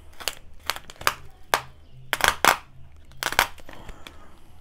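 Plastic packing-slip pouch and bubble wrap being peeled and torn open by hand: irregular crackling and crinkling, loudest a little past two seconds in and again about a second later.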